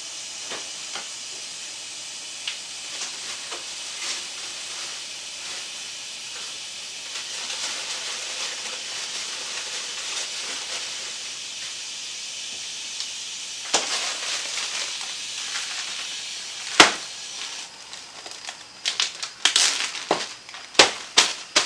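Water running from a kitchen tap into a 22-quart stockpot, a steady hiss as the pot fills. There is a sharp knock about 17 seconds in, and near the end a quick run of crinkles as a plastic freezer bag is handled.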